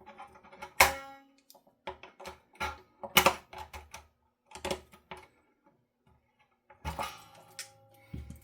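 Small metal parts clicking and knocking against the guitar body as the tremolo decking bracket is worked into the back cavity; after the harder knocks the guitar's strings ring briefly.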